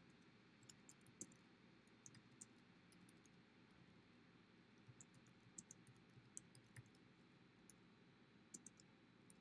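Faint computer keyboard typing: runs of quick light key clicks with short pauses between words.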